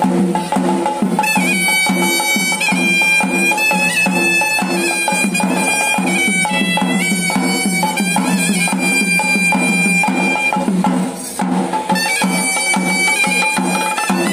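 Traditional Sri Lankan ceremonial music: double-headed drums beating a steady rhythm under a shrill reed pipe holding a high, bagpipe-like melody. The music dips briefly about eleven seconds in.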